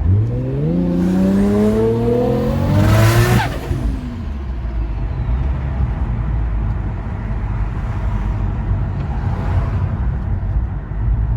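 Nissan Stagea RS4's straight-six engine revving up in one long climb for about three seconds. The throttle then closes, and it drops back to a low steady rumble.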